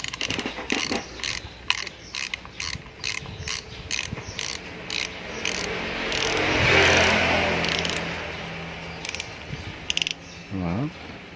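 Fishing reel being cranked, giving a steady run of mechanical clicks about three a second. A hiss swells and fades in the middle, and a few more clicks follow.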